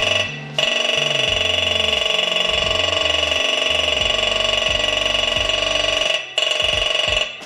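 Handheld dot-peen marking gun stamping a VIN into a catalytic converter's shell: a loud, steady, high-pitched buzz, over a lower note that changes pitch in steps. It stops briefly three times, once just after the start and twice near the end.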